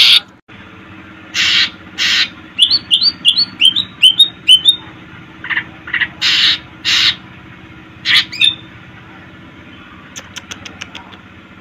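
Cucak ijo (green leafbird) calling: loud harsh rasping notes, twice early and twice again past the middle, with a quick run of about seven short chirps in between and a few faint ticking notes near the end.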